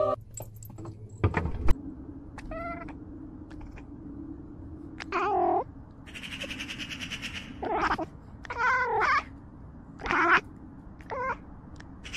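A domestic cat meowing about six times, the calls spaced a second or two apart, over a steady low hum. A sharp knock comes about a second and a half in.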